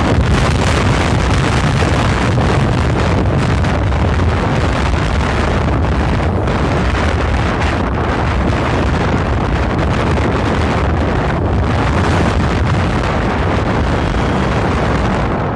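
Loud, steady wind rumble on the microphone of a camera moving along a road, with the running noise of the vehicle carrying it underneath.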